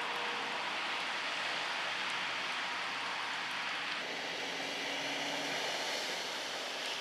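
Steady rushing noise of floodwater under a vehicle, with an abrupt change in the sound about four seconds in. The later part is a tow truck dragging a flooded sedan through deep water, its wheels throwing up spray.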